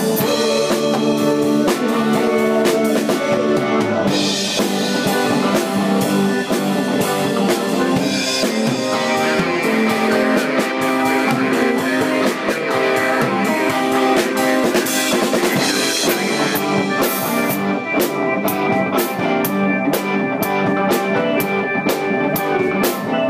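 A live rock band playing an instrumental passage: a drum kit close to the microphone, with cymbals and drum hits, and electric guitars.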